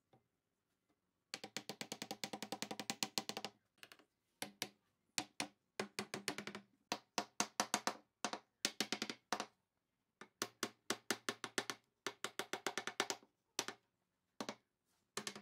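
Wooden mallet rapidly tapping a wooden crossbar down onto its mortise-and-tenon joints: quick runs of about ten light knocks a second, in groups broken by short pauses.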